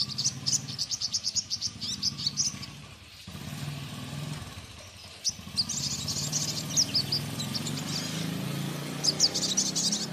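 Sogon bird calling in three bursts of rapid, sharp, high chirps, used as a lure song to set other sogon birds singing. A steady low hum runs underneath.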